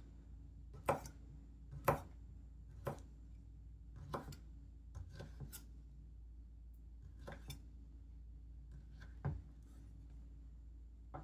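Large kitchen knife slicing Chinese sausage on a wooden cutting board: the blade knocks on the board with each cut, the first few about a second apart, then fewer and softer ones.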